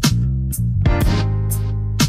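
Instrumental background music: sharp drum hits at the start, about half a second in and about a second in, over a plucked line, with a deep bass note held through the second half.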